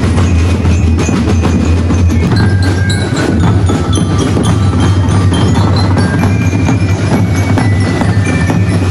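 Ati-atihan street drum band playing a fast, dense sadsad beat on bass drums and snare drums, with short high ringing tones over the drumming.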